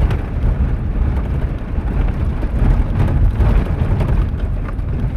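Vehicle being driven fast over desert sand: a steady low rumble of engine and tyres, with wind buffeting the microphone.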